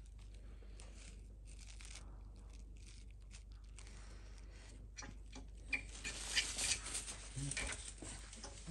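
Faint handling noise from an engine bearing shell being turned over in the fingers: light rustling and small clicks, with a run of sharper clicks and taps in the second half.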